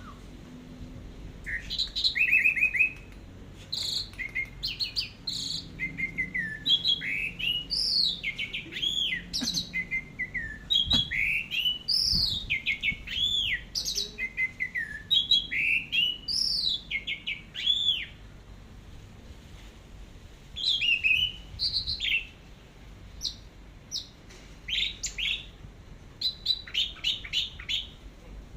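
Orange-headed thrush singing a long, varied run of clear whistled phrases and quick rising and falling slurs, phrase after phrase with only short pauses in the second half.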